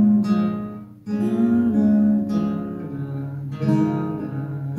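Acoustic guitar with a capo, chords picked and strummed with the fingers and left to ring. Fresh chords sound about a second in and again about three and a half seconds in, with lighter notes in between.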